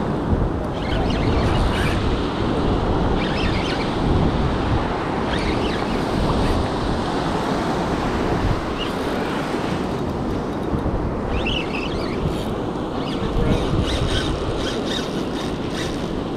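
Surf washing and fizzing around the feet in shallow water, with wind buffeting the microphone.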